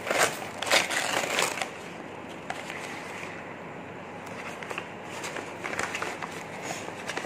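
Brown paper parcel mailer being torn open and crumpled by hand. Loud ripping and crinkling in the first second and a half, then quieter, scattered rustling of the paper.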